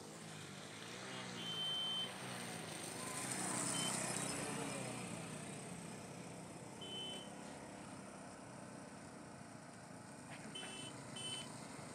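Motorcycle engines running as the bikes move along a wet road, with a few short high-pitched beeps, the last two close together.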